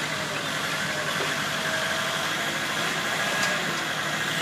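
Forklift engine running steadily as the operator works the forks under a car on a flatbed truck: an even mechanical hum and hiss with no breaks.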